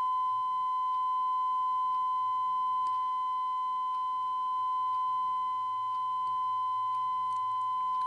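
Steady 1 kHz sine test tone passed through a wah pedal circuit's yellow Fasel 500 mH inductor, with faint overtones. Its loudness wavers only slightly as a strong magnet is held against the inductor's ferrite core: a subtle attenuation.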